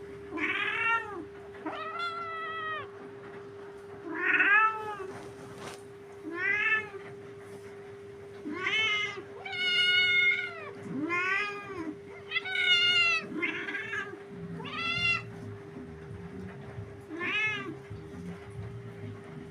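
A domestic cat meowing over and over: about eleven drawn-out meows at irregular intervals, each rising then falling in pitch. A steady low hum runs underneath.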